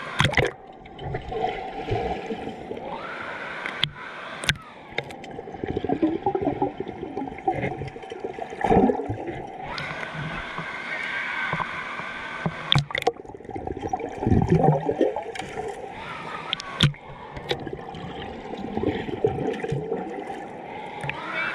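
Water rushing and gurgling, with sharp knocks and splashes now and then.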